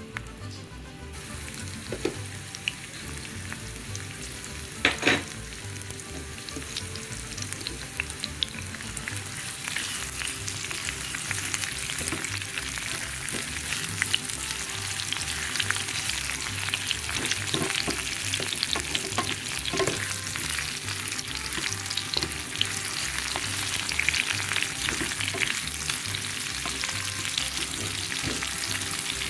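Sliced onion and garlic frying in hot oil in a pan, sizzling, being stirred with a wooden spatula. The sizzle grows louder over the first ten seconds or so. Scattered crackles and scrapes run through it, with a sharp knock about five seconds in.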